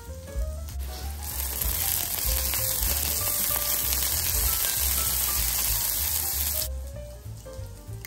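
Zucchini cubes and dill frying in oil in a pan, a steady sizzle that starts about a second in and cuts off abruptly near the end.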